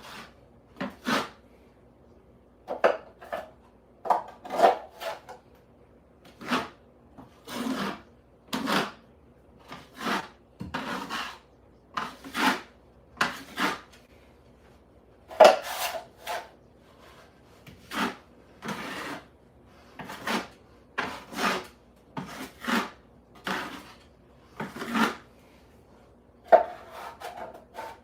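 Repeated short rasping strokes of a hand tool scraping or rubbing a hard surface, about one stroke a second at an uneven pace.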